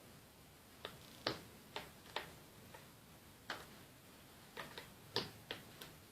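Sharp, irregularly spaced clicks and light knocks, about a dozen, from a puzzle box's moving parts being worked by hand.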